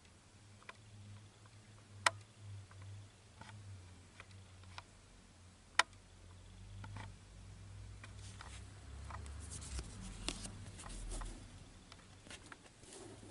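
Faint handling noise close to the microphone: scattered light clicks, two sharper ones about 2 and 6 seconds in, then a denser run of clicks and light rustling in the second half, over a low hum.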